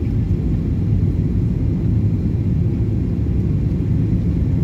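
Steady low rumble inside a jet airliner's cabin as it descends on approach to landing: engine and airflow noise heard from a window seat, even throughout.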